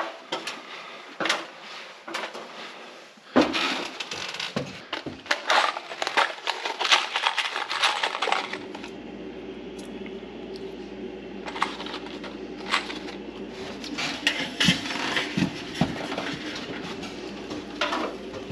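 Irregular metallic clattering and knocks as lengths of sheet-metal ceiling trim and hand tools are handled. A steady low hum comes on about halfway through.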